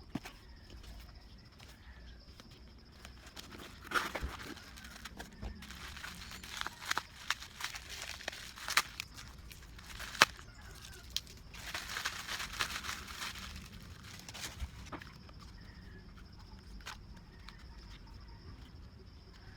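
Handling noise: scattered sharp clicks with stretches of rustling, crinkling sounds over a low steady background.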